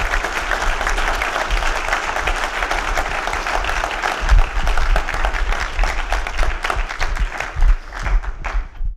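A large audience applauding at the close of a talk: many people clapping at once in a steady, dense patter.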